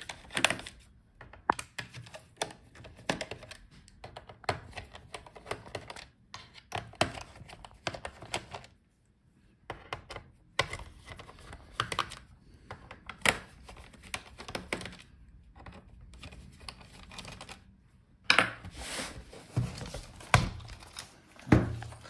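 Small precision screwdriver clicking and scraping on the bottom-case screws of a laptop's metal cover: irregular light clicks and taps with short pauses. A cluster of louder handling knocks comes near the end.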